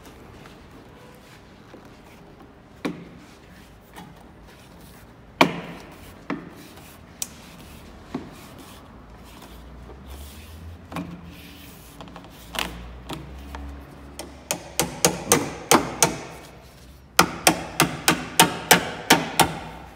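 A few scattered knocks and rubbing as the door's window trim is worked by hand, then from about 14 seconds in a fast run of sharp hammer blows on metal, several a second and louder near the end, driving a tool along the door's window channel to widen it for thicker armored glass.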